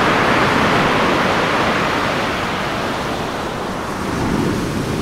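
Steady rushing wash of ocean surf, swelling slightly near the end.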